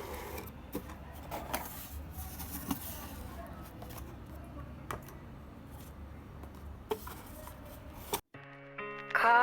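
A steady low hum with scattered clicks and light knocks, which cuts off abruptly about eight seconds in. Background music with plucked, sustained notes starts right after and is loud by the end.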